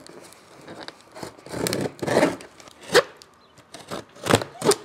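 Scissors slicing through the packing tape and cardboard of a box, with rasping scrapes and a few sharp snaps, the loudest about three seconds in and two near the end.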